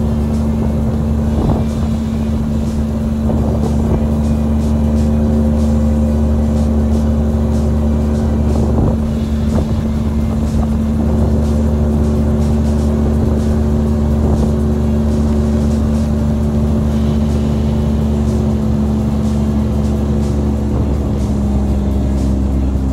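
Small boat's outboard motor running steadily at speed, one constant engine note, as the boat moves along a river.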